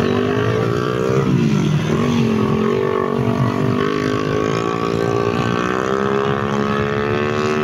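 Tractor diesel engine labouring under a heavy pull, front wheels lifting. Its revs dip about a second in, climb back over the next few seconds and hold high.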